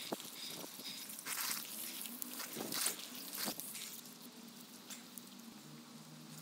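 Cold water from a garden hose spray nozzle splashing over a man's head and body, in uneven spurts of hiss and patter that die down in the last couple of seconds.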